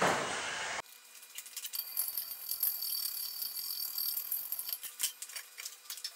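Hands working along a paint-flaked steel pipe: dry, scratchy rubbing with many small clicks and rattles. A louder, dense noise cuts off abruptly about a second in.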